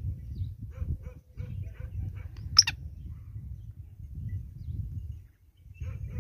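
Wind rumbling on the microphone with faint scattered ticks, and about two and a half seconds in, one short, sharp call note from a male black francolin. The rumble drops away briefly near the end.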